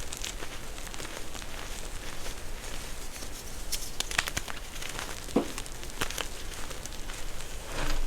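Crunchy crackling and crumbling from a crunchy reform being crushed by hand, with scattered sharp snaps over a steady crinkly texture and a louder crunch near the end.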